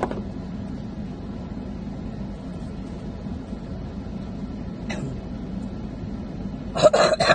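Steady low hum of a car cabin with the engine idling. There is a faint short noise about five seconds in and a louder brief burst near the end.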